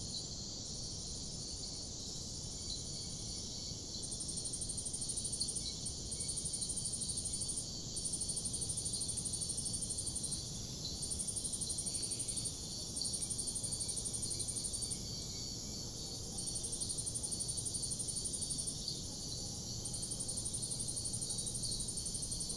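High-pitched insect trilling, coming in phrases of one to three seconds separated by short gaps, over a faint steady hiss.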